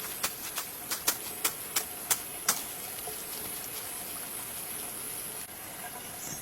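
About eight sharp knocks in quick succession, roughly three a second, during the first two and a half seconds, then a steady high hiss.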